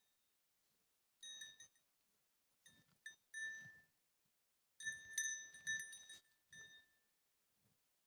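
A small metal bell jingling in four short bursts, the loudest about five seconds in, each ringing with the same fixed bright tones over a light rattle.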